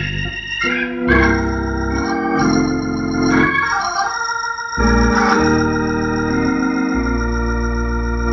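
Hammond organ playing a run of held full chords over deep bass notes, changing chord every second or two, the closing chords of the piece.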